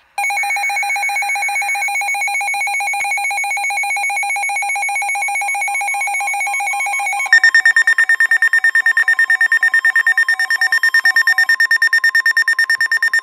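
Weather alert radio's built-in alarm going off for an incoming flood warning: a loud electronic tone pulsing several times a second. About seven seconds in it switches to a higher, sharper pulsing tone.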